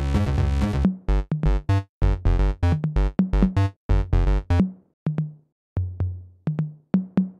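Electronic outro music with synthesizer and drum-machine beats; about halfway through it thins out to sparse, separate notes with short gaps between them.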